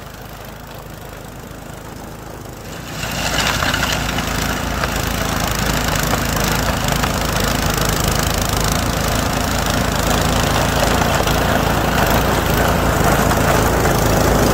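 Troy-Bilt Storm 2420 two-stage snowblower's single-cylinder engine running steadily under load as its auger and impeller pick up snow and throw it out of the chute. The sound grows louder about three seconds in.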